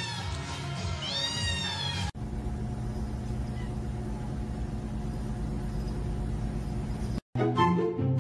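A white kitten gives one high-pitched meow that rises and falls, about a second in. After a sudden cut a steady low hum follows, and background music comes in near the end.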